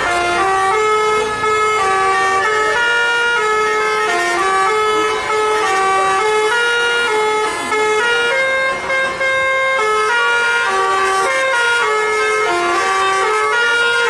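Tour bus's musical 'telolet' horn playing a tune: a continuous run of held notes that step up and down without a break.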